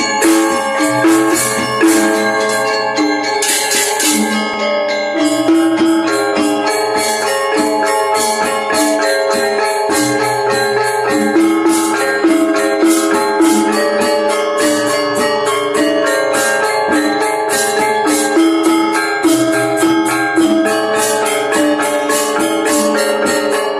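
Balinese gamelan playing: bronze gong-chimes (reong) and metallophones ringing in fast interlocking patterns over a dense, even run of sharp high metallic strikes.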